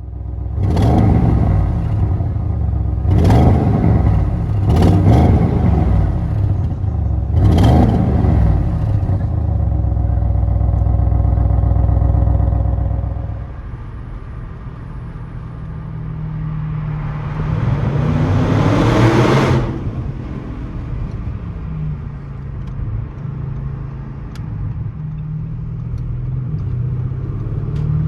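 Audi RS6 C8's 4.0-litre twin-turbo V8 through its RS sports exhaust, heard on board. It gives four short, sharp bursts of revs in the first eight seconds, then runs steady and loud. After that it accelerates for a few seconds, rising in pitch, cuts off suddenly about two-thirds of the way through, and settles into quieter cruising.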